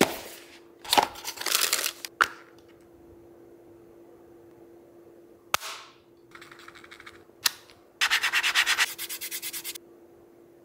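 Plastic phone cases and their cardboard boxes being handled, with rubbing and sliding scrapes and several sharp clicks and snaps. Near the end comes a fast, even run of ticks lasting about two seconds. A faint steady hum runs underneath.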